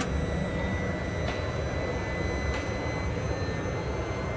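Electric motor of the boat's powered windshield running steadily after being switched on from the helm touchscreen, with two faint ticks partway through.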